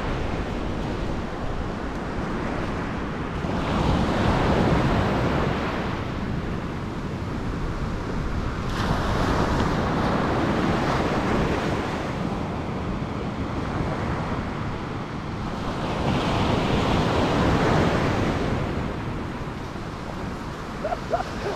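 Ocean surf breaking and washing up a sandy beach, swelling louder three times as waves come in, with wind rumbling on the microphone.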